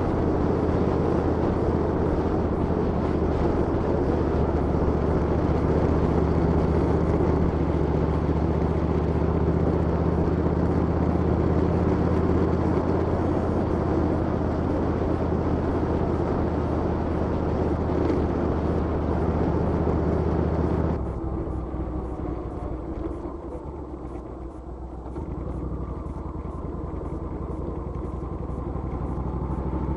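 Motorcycle engines running steadily with a low, even hum; about two-thirds of the way through the sound drops away suddenly to a quieter engine hum.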